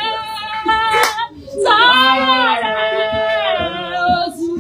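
Women's voices crying out in long, high, wavering held notes, somewhere between wailing and singing. A single sharp clap comes about a second in.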